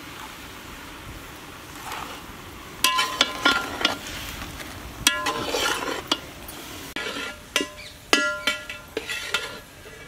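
A metal spatula stirring sliced mushrooms frying in oil in a large aluminium pot, with a low sizzle underneath. From about three seconds in come repeated bursts of scraping and clanking, the spatula striking the pot with short metallic rings.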